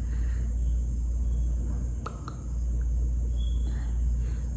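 Steady low rumble of room noise, with two light clicks in quick succession about two seconds in.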